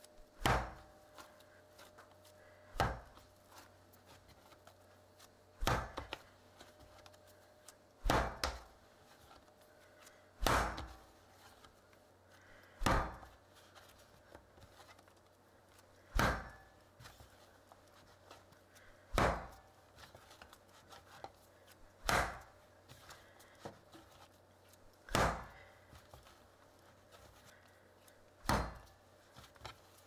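Bread dough being kneaded by hand on a bamboo cutting board. It thumps down onto the wood about every two to three seconds, with faint rubbing in between.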